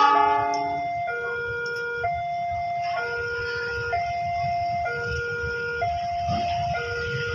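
Railway level-crossing warning alarm sounding: an electronic two-tone signal alternating a lower and a higher note, each held about a second, warning that a train is approaching. A low rumble of waiting traffic runs underneath, and a short loud horn blast sounds right at the start.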